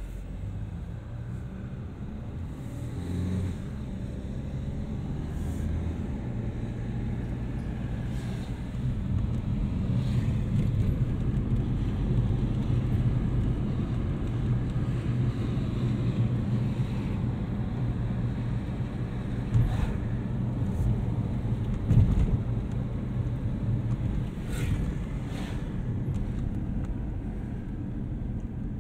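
Road noise heard from inside a moving car: a steady low rumble of engine and tyres, with a few short knocks, the loudest about two-thirds of the way through.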